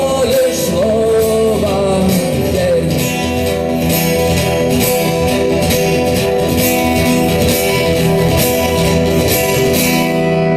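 Live acoustic guitar strumming under a man's singing voice for the first couple of seconds, then the guitar plays on alone in steady strokes.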